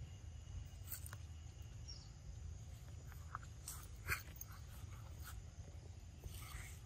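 Macaques eating soft fruit: scattered faint clicks and smacks of biting and chewing, the loudest about four seconds in. Underneath is a low, steady outdoor rumble.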